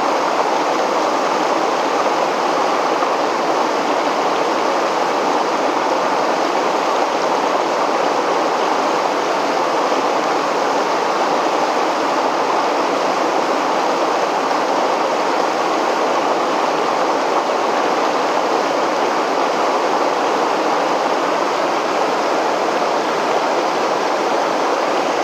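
River water spilling over a weir: a steady, even rushing.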